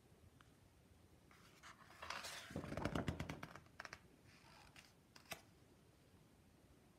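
A page of a hardcover picture book being turned by hand: paper rustling and crackling for about two seconds, then a single short tap a little later.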